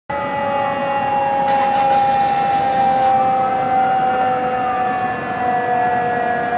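Fire apparatus sirens: a loud steady tone that slowly sinks in pitch, under a wailing siren that sweeps down, up and down again. A burst of hiss starts about a second and a half in and lasts a little over a second.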